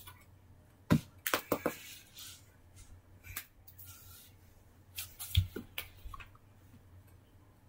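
A few sharp clicks and light knocks, a quick cluster of them about a second and a half in and a few more around five seconds in, over a faint low hum.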